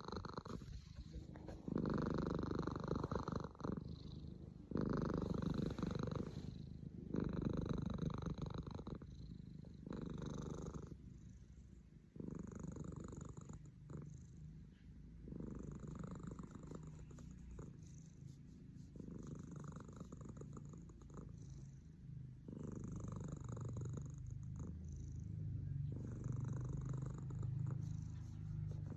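Domestic cat snoring while asleep, the sound swelling with each breath about every two and a half seconds.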